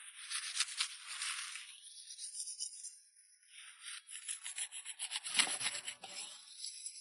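Crisp crackling and rustling of wild vegetable stalks and leaves being cut and handled, in quick uneven clicks that swell and fade, loudest about five and a half seconds in.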